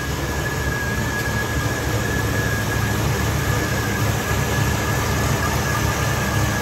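1966 Chevy Impala's V8 engine idling steadily, with a thin, steady high whine over the low rumble. The newly fitted alternator is charging.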